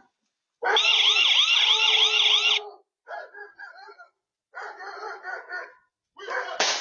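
Electronic alarm siren with a fast warble, sounding for about two seconds and then cutting off. It is followed by several shorter, choppy sounds.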